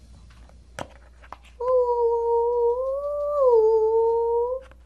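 A child humming one long note for about three seconds; the pitch rises a little partway through, then drops back. A couple of light clicks from toys being handled come about a second in, before the humming.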